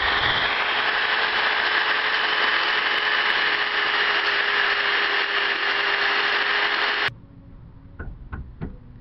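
Electric drill spinning an abrasive grinding stone against the cut rim of a tin can, grinding off the burrs: a steady whine over a grinding hiss that cuts off suddenly about seven seconds in. A few light taps follow near the end.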